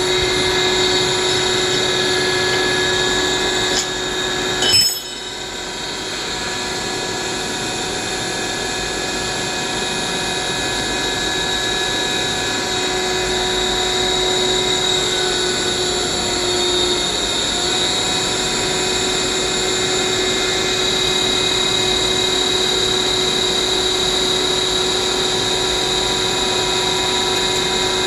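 Inverter-driven vertical multistage water pump running with a steady whine. A sharp click comes about five seconds in, then the sound briefly drops and slowly builds back up.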